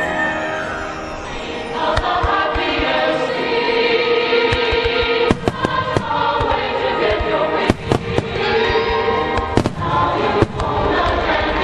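Choral music playing, with firework shells bursting over it in sharp bangs, about half a dozen of them, mostly in the second half.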